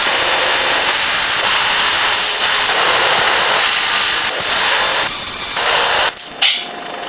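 Power tool running with a loud, steady hiss, cutting out briefly about six seconds in.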